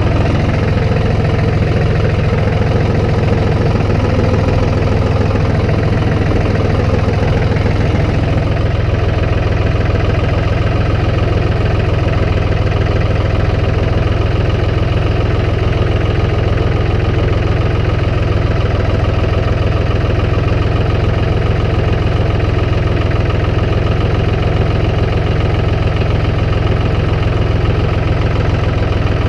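Engine of a snow-plowing vehicle running steadily, a constant low drone with no change in pace.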